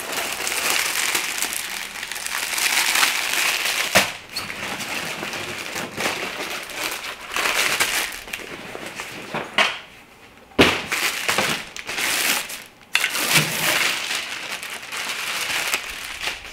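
Plastic packaging crinkling and rustling as it is torn open and pulled off the reflector's curved frame rods, with a few sharp clacks of the rods being handled.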